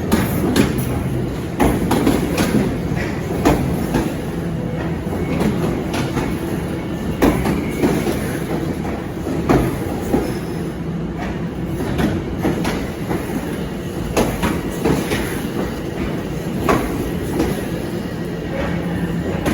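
Electric train moving slowly through the station, its wheels clattering over rail joints and points in irregular knocks over a steady rumble.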